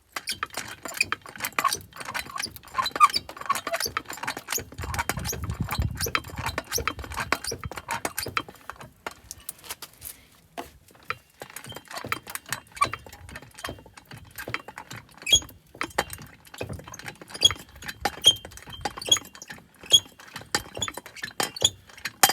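Porta-Power hydraulic hand pump and ram being worked against bent bus-door metal: many sharp, irregular clicks and metallic clinks, with a short low rumble a few seconds in.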